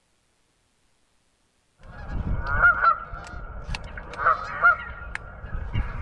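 Geese honking, a few loud honks among softer calls, starting about two seconds in, with wind rumbling on the microphone.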